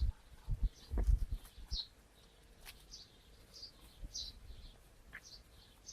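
Bird chirping in the background, short high chirps about twice a second, with a few dull low thumps in the first two seconds.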